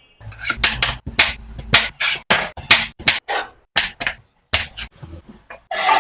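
Knife chopping watermelon on a cutting board: a quick series of sharp cuts, about three a second.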